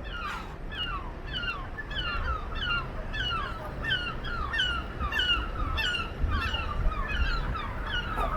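Birds calling over and over in a quick run of short notes, about three a second, with several voices overlapping. A low rumble sits underneath.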